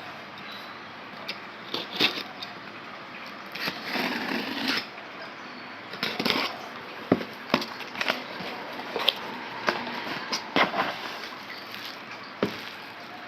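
Hands unpacking graphics cards: packaging rustling and scraping, with scattered sharp clicks and knocks of the cards and box parts being handled.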